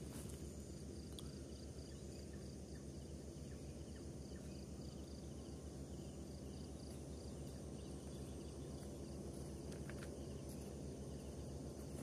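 Night insects chirping in a steady, regular high pulse, over a low, steady background rumble.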